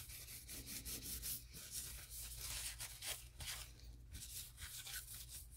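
Paper towel wiped over the foil-covered body of a wooden lure, with faint, irregular rubbing strokes. The foil is being cleaned with rubbing alcohol so that paint will adhere.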